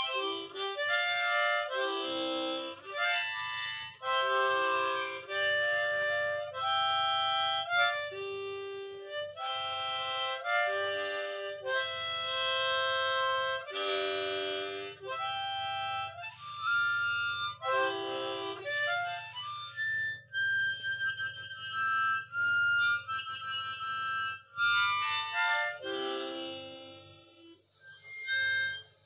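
Harmonica (mouth organ) played by a beginner: a string of short held notes and chords, each lasting about half a second to a second and a half, with brief breaks between breaths. Near the end it drops away for a moment before one last short note.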